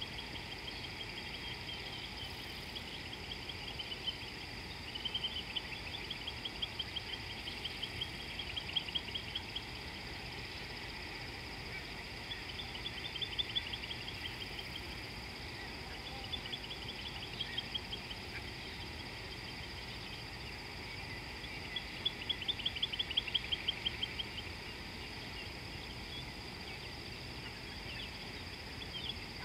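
A bird singing repeated fast trills of short high notes, each run lasting a second or two and coming several times, the longest and loudest near the end, over a steady high-pitched hum.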